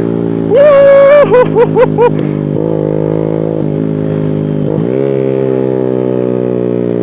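Suzuki Smash's small single-cylinder four-stroke engine through an aftermarket exhaust, revved once and then blipped four times in quick succession. It then runs steadily, with the pitch dipping and climbing again about five seconds in.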